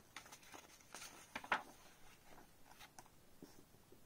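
A picture book's paper page being turned by hand: faint scattered rustles and light ticks, the strongest about a second and a half in.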